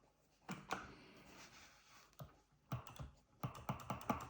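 Buttons clicking on an arcade-style joystick controller used for editing. A few separate clicks come first, then a quick run of clicks near the end.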